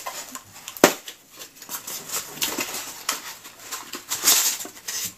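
Small cardboard product box being opened and handled, with packaging rustling and crinkling, a sharp snap about a second in, and a louder rustle near the end.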